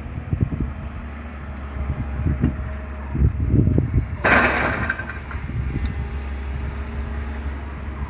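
A Komatsu hydraulic excavator and a tipper truck run with a steady low rumble and irregular low thuds. About four seconds in there is a loud rushing, crashing noise that lasts about a second.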